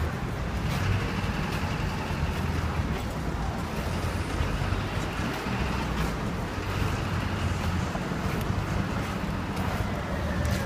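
Steady city street noise: traffic rumble with wind buffeting the microphone.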